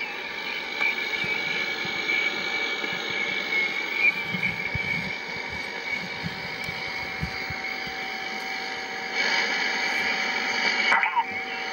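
Yaesu FRG-7 shortwave receiver hissing with band static through its speaker, with several steady heterodyne whistles. The static grows louder about nine seconds in, and near the end a whistle slides in pitch as the receiver is tuned.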